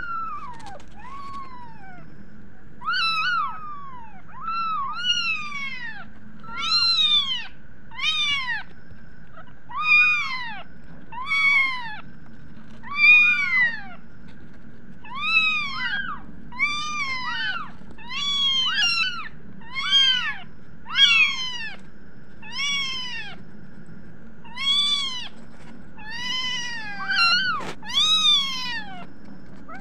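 Young kittens meowing over and over in short, high-pitched cries that rise and fall, roughly one a second, now and then two at once. A faint steady hum runs underneath.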